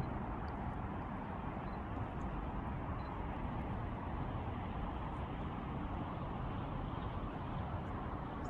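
Steady outdoor background noise, a low rumble with hiss above it and no distinct events.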